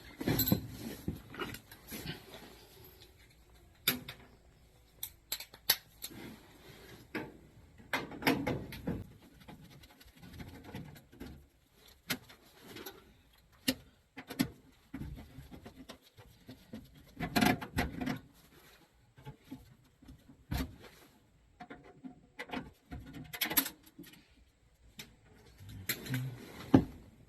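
Scattered clicks, clinks, knocks and rattles of hand tools and metal parts being handled while a failed HVAC motor is taken out and a new one put in.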